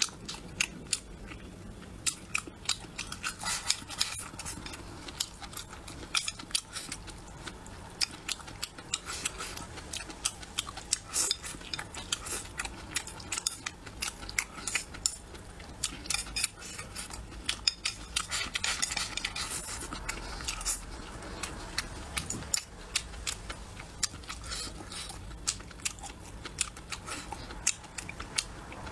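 Close-up eating sounds: chewing and biting braised pork intestines and rice, with quick, irregular wet mouth clicks and smacks and occasional chopstick taps on the bowl.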